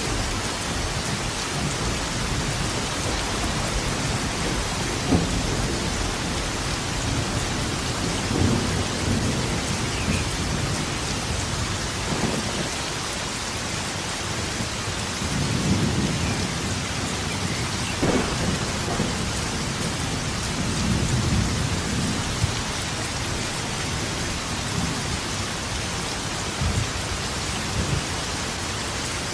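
Steady heavy rain falling, with thunder rumbling repeatedly through it, some peals low and rolling and a few sharper cracks.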